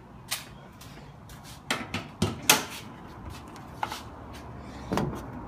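A series of sharp knocks and clatters, about seven in all, loudest about two and a half seconds in, over a low steady background.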